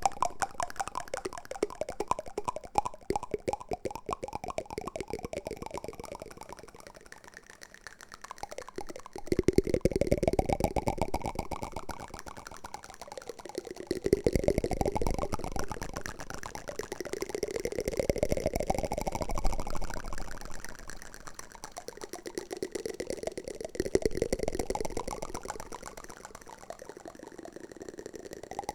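Wooden spoon ASMR trigger sounds: rapid, fine scraping and clicking that swells and fades in repeated passes of four to five seconds, each rising in pitch as it goes.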